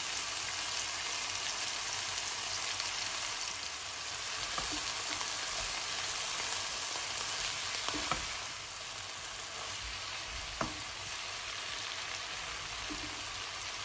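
Mushrooms and tenderstem broccoli sizzling steadily in a non-stick wok, stirred with a spatula, with a few light clicks of the spatula against the pan about eight and ten and a half seconds in.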